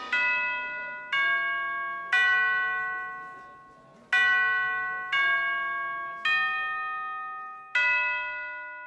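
Background music ending on seven slow, single bell-like chime notes, each struck and left to ring out, with a longer gap after the third; the last note fades away near the end.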